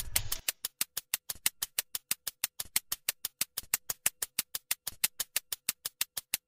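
A rapid, perfectly even series of sharp clicks, about six a second.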